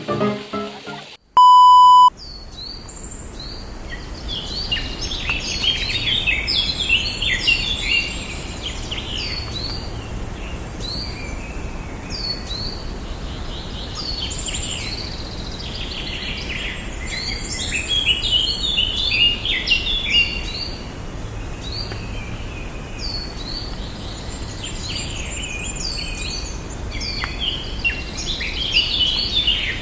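A single loud steady beep lasting under a second about a second and a half in, then a dense chorus of many birds chirping without pause, short quick chirps over a low steady background hum.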